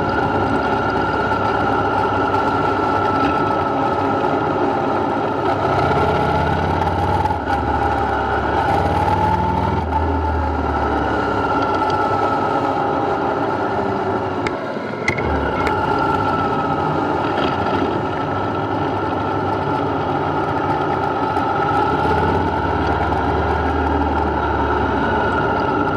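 Motorcycle engine running at riding speed with wind rushing past the camera's microphone. The engine note swells and eases a few times, and there is a brief dip with a single click about fifteen seconds in.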